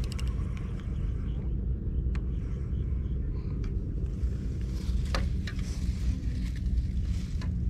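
Steady low rumble of wind on the camera microphone. From about four seconds in, rustling and a few light clicks come in as a fishing rod is handled among long grass.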